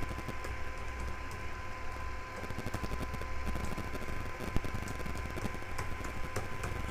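Typing on a computer keyboard: quick, irregular key clicks over a steady low hum and a faint steady high tone.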